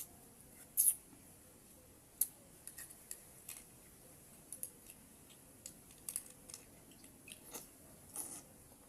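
Sparse, irregular light clicks and ticks, about a dozen short sharp ones, the loudest about a second in and just over two seconds in.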